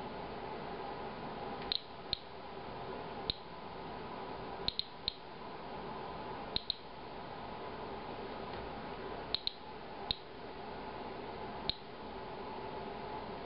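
Inspector Alert Geiger counter clicking at random, irregular intervals, about a dozen clicks, sometimes two or three close together. Each click is one detected ionizing event, from background radiation and possibly from the beer-filter sample being counted.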